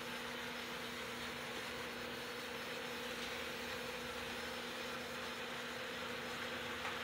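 Model trains running around their track loops: a steady whir and rattle of the small motors and wheels on the rails, over a steady hum.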